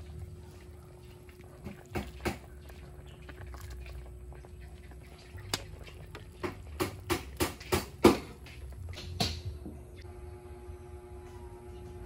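A series of sharp knocks or clinks: a few scattered ones, then a quick run of about six in under two seconds near the middle, over a faint steady hum.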